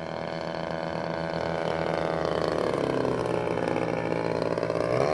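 DLE 35cc single-cylinder two-stroke petrol engine of a radio-controlled bush plane in flight, growing louder as the plane comes nearer. Its pitch sags and then climbs sharply near the end as the throttle is opened.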